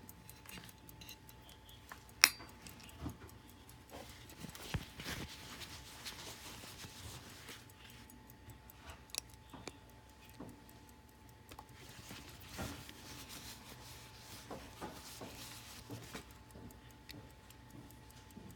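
Hampden 23-jewel pocket watch movement ticking in a rapid, even beat. It is overlaid with handling noise of small clicks and rubbing, a sharp click about two seconds in, and the ticking stands out clearly again near the end.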